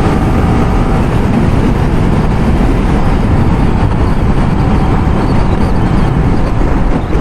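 Riding a motorcycle at speed: steady wind rushing over the rider's lavalier mic, with the engine running underneath.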